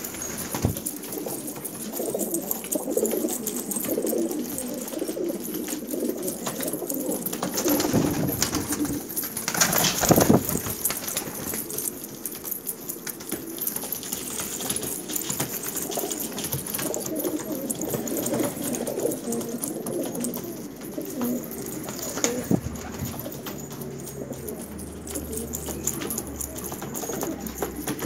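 Domestic fancy pigeons cooing, several at once and overlapping, with a brief louder rustling noise about ten seconds in.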